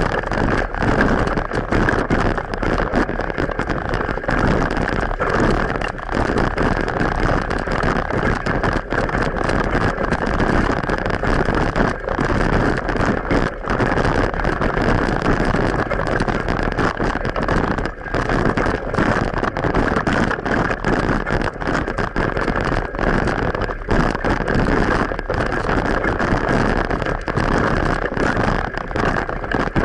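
Steady rushing wind and road noise picked up by an action camera's microphone while riding, fluttering quickly but never breaking off.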